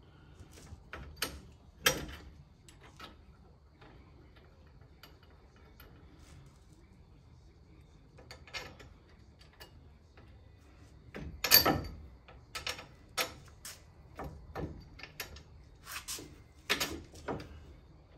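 Irregular metallic clinks and knocks of bolts, clips and hand tools being fitted to a pickup truck's front strut and lower control arm. One louder clank comes about two-thirds of the way in, followed by a run of quicker clicks.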